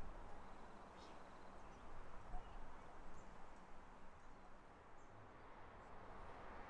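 Faint outdoor ambience: a steady low rumble with a few short, high bird chirps.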